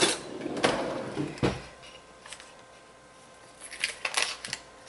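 Metal cutlery rattling in an open kitchen drawer as a knife is taken out, with a dull thud about a second and a half in. A few light clicks near the end.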